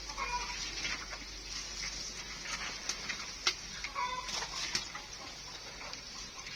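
Short animal calls, one about a second in and another about four seconds in, over scattered sharp clicks and taps.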